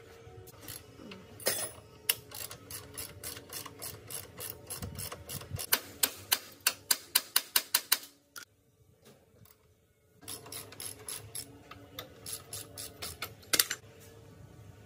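Metal hand-tool clicking during work on motorcycle parts, with a regular run of sharp ratchet-like clicks at about four a second in the middle. It stops for about two seconds, then scattered clicks resume, one louder near the end.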